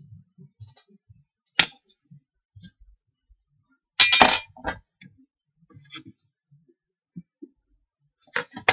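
Metal hand tools, a steel square and a vernier caliper, knocking and clanking as they are handled and set down on a wooden board. There is a sharp click about a second and a half in, the loudest clang about four seconds in, a few small knocks between, and two clicks near the end.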